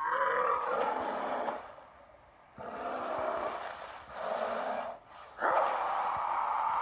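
Animated show's soundtrack played through a TV and picked up in the room. First come three short, loud vocal sounds with gaps between them. Then, about five and a half seconds in, a man's long scream breaks out suddenly and is held.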